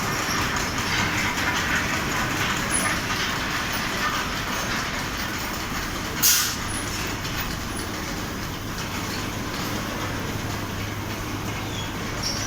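Large automatic fabric spreader machine running with a steady mechanical noise, with one short, sharp hiss about six seconds in.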